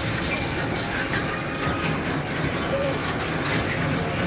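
Amusement-park coaster car rolling along its steel track: a steady rumble of wheels on rail with faint rattling.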